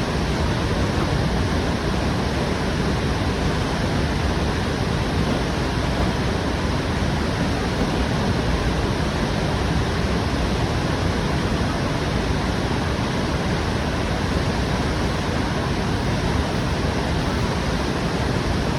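Whitewater rapids of the Jinsha River rushing: a steady, unbroken rush of churning water, strongest in the deep low end, with no breaks or separate events.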